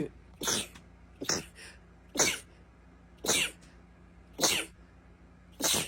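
A rapid sneezing fit: about seven short, sharp, high-pitched sneezes, roughly one a second.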